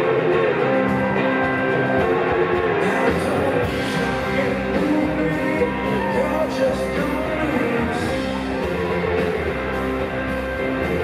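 Live rock band playing at full volume, with electric guitars and drums, and a male singer singing into the microphone.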